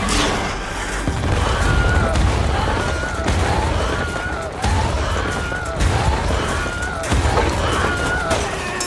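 Animated-film battle sound effects: a continuous barrage of blaster-style shots and explosions with rumbling blasts surging about once a second, over a film score.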